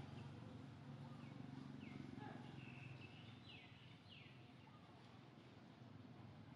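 Faint outdoor ambience: a low steady hum, with several short, falling bird chirps around the middle.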